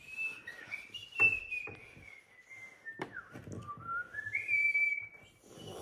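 A child whistling a few wandering, sliding notes, with a couple of light knocks of plastic toys on the table about one and three seconds in.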